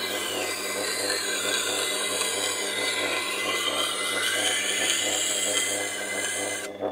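Tormek wet grinder's CBN 400 wheel grinding the edge of a santoku knife: a steady rasping hiss over the motor's low hum. Near the end the grinding cuts off sharply as the blade comes off the wheel, while the motor keeps humming.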